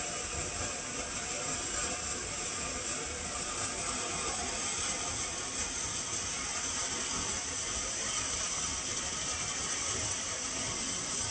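Starvel Fireworks Sunrise Peacock ground fountain firework burning, its fan of spark jets giving a steady hiss with a fast, dense crackle.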